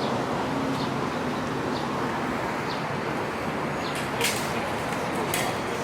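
Steady background noise of a busy public place full of people, with a few short sharp clicks about four and five and a half seconds in.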